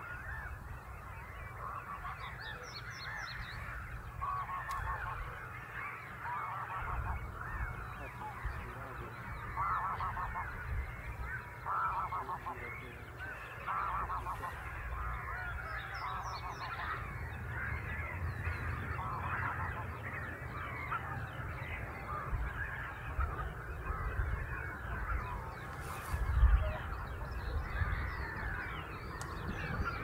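A flock of wild geese calling continuously, a dense overlapping chorus of cackling honks, with a steady low rumble underneath. A single low bump stands out about 26 seconds in.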